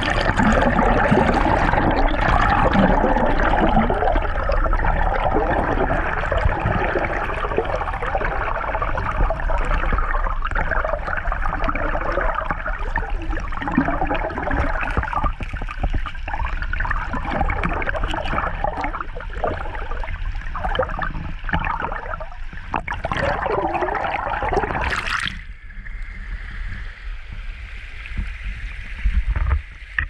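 Fast creek water rushing and gurgling, heard through a camera held underwater: a dense, steady churn that becomes quieter and thinner about 25 seconds in.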